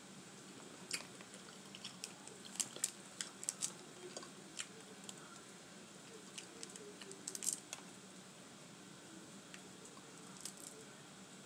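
Boiled crawfish being cracked, peeled and eaten with the fingers: sharp irregular clicks and crackles of breaking shell. They come in clusters, heaviest in the first few seconds and again about seven seconds in.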